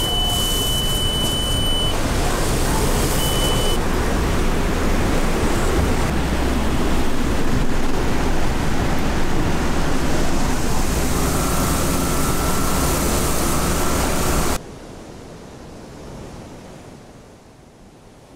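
Squall wind blowing hard across the boat and microphone, which the crew put at over 50 knots, over choppy whitecapped water. At the start a steady high beep sounds for about two seconds and once more briefly, the engine panel's alarm buzzer as the ignition is switched on. The wind noise drops suddenly near the end.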